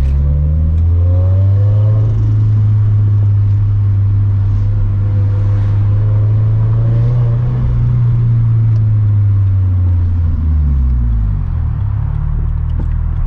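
Turbocharged Scion FR-S flat-four engine running at steady revs under way, its note falling about ten seconds in as the revs drop.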